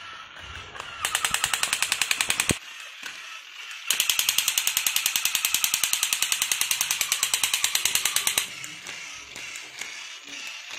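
Battery-operated crawling Spider-Man soldier toy firing its toy machine gun: two bursts of rapid shots, about ten a second, a short one about a second in and a longer one from about four to eight seconds in, over the quieter mechanical whir of the toy crawling.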